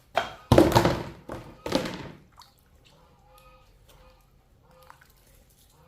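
A short run of loud thuds in the first two seconds, then only faint background.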